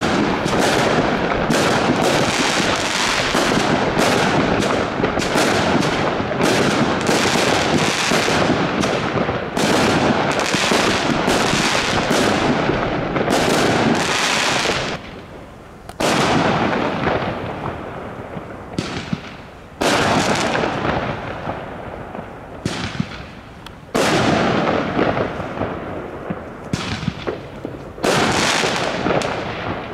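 Aerial fireworks bursting overhead: a dense, almost continuous run of bangs for about the first half, then a handful of separate loud bursts a few seconds apart, each trailing off slowly.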